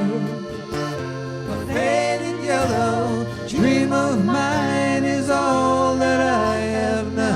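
Live music: a song with long, held sung notes that bend in pitch, over instrumental accompaniment.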